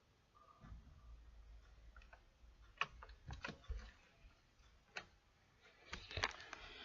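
A few sharp, scattered clicks and small snaps from a stiff, stone-hard homemade glue-and-borax slime being handled. It pops and breaks instead of stretching.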